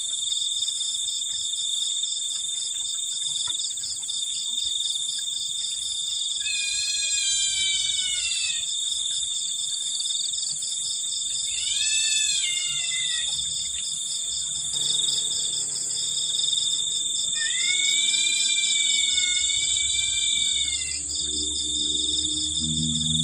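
Steady, high chirring of a night insect chorus such as crickets. Over it come three drawn-out pitched calls, each rising and then falling, of unknown origin: the 'strange sound'.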